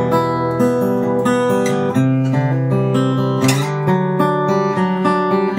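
1950s Kay 000 (OM-size) acoustic guitar being played, with a solid spruce top, laminated mahogany back and sides, X-bracing and phosphor bronze strings. Chords are picked and strummed at an easy pace, the notes ringing on, with a fuller strum about three and a half seconds in.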